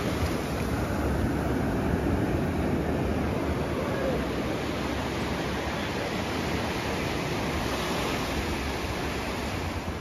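Small Atlantic Ocean surf on a calm sea, waves breaking at the shoreline and washing up the sand in a steady rush of water.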